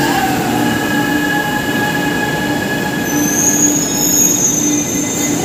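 Chennai Metro electric train moving past along the platform: a steady whine from its motors, with a high wheel squeal coming in about three seconds in.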